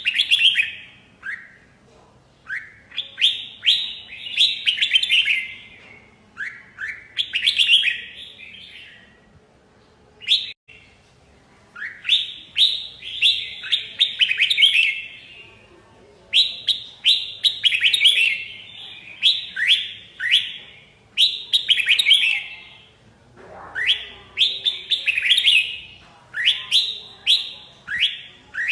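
Red-whiskered bulbuls singing: a steady run of short, loud phrases of quick falling notes, one phrase every second or two with brief pauses between.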